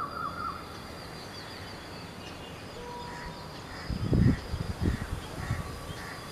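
Wild birds calling outdoors. A fast warbling trill ends about half a second in, followed by faint high chirps and a run of short calls about twice a second. A few low thumps come around four to five seconds in.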